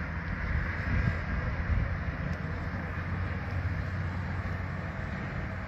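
Steady outdoor background noise: a low rumble with a faint hum underneath and an even hiss.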